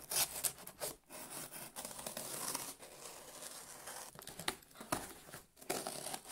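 Packing tape on a cardboard parcel being slit with a knife blade: irregular scratchy tearing and crinkling of tape and cardboard, with many short sharp strokes and clicks.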